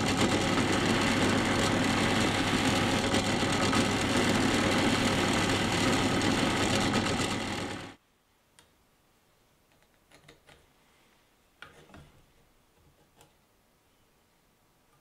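Drill press spinning a buffing wheel while an 80CrV2 carbon-steel knife blade is polished against it toward a mirror finish: a loud, steady motor hum with a hiss that cuts off sharply about eight seconds in. Then it goes quiet, with a few light taps and scrapes of a steel ruler and pencil on a wooden block.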